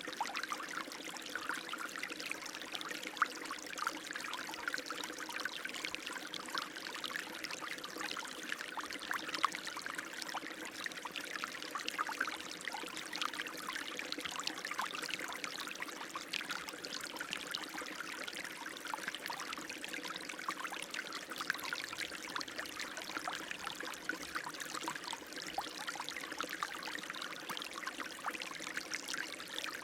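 Running water splashing steadily: a continuous spatter of many small splashes, bright and hissy, with almost no low rumble.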